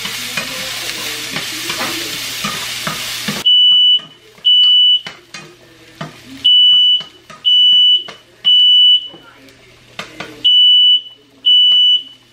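Onions frying in bacon grease sizzle in a pan and cut off suddenly about three and a half seconds in. Then a smoke alarm beeps a high steady tone in groups of three half-second beeps, set off by smoke from the pan, with light spatula clicks between the beeps.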